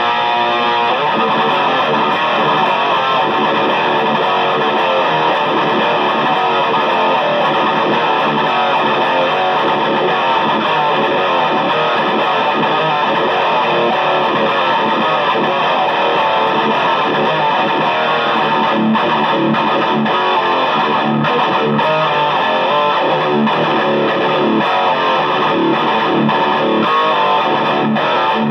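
Electric guitar played through a Bogner Ecstasy 3534 valve amplifier, with an overdriven tone, in continuous riffing and strumming without a break.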